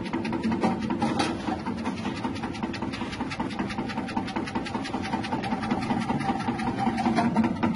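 Electric chip-slicing machine running, its 180-watt motor spinning the blade disc as produce is pushed down the feed tube and cut into crinkle slices. Steady, rapid mechanical chatter.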